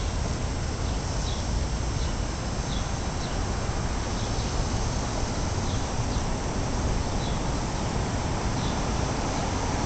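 Steady low rumble of city street noise, with a small bird chirping over it: short, high chirps about once a second that fade toward the end.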